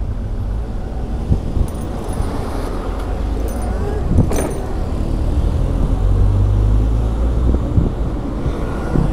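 Steady low rumble of wind buffeting the microphone and road noise while riding a Zero FX electric motorcycle in traffic. There is a single sharp knock about four seconds in.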